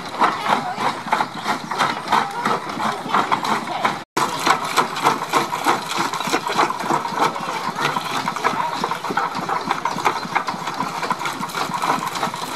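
Vintage twin-flywheel jaw-type stone crusher running and crunching bricks fed into it by hand: a fast, dense, steady rattling clatter of the working jaws and breaking brick. The sound cuts out for an instant about four seconds in.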